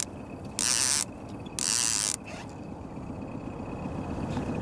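Fishing reel's clicker buzzing in two short spurts about a second apart as line is let out to drop the bait deeper toward the bottom.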